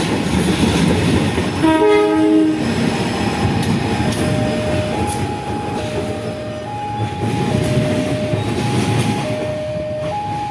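CC 203 diesel-electric locomotive engine running as it passes, with one short blast of its horn a little under two seconds in. From about three seconds in, the level-crossing warning alarm sounds, alternating between a higher and a lower tone, each held a little under a second.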